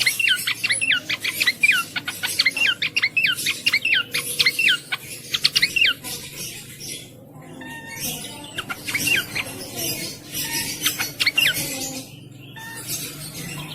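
Cingcoang singing: quick runs of sharp, falling whistled notes, densest through the first six seconds, then shorter phrases after a brief pause.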